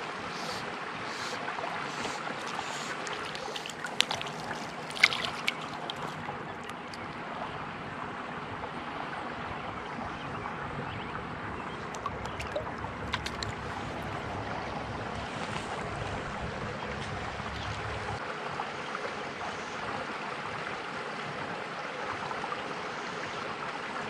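Steady wind noise on the microphone and water being stirred as a small brook trout is brought in and handled in shallow water. A few sharp clicks come about four to five seconds in and again around twelve seconds.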